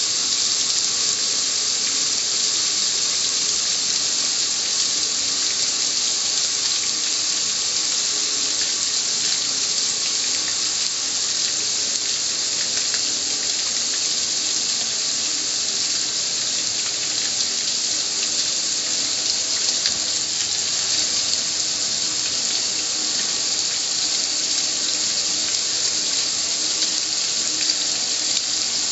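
Water spraying steadily onto the metal lid of a gas grill, splashing and running off in an even hiss.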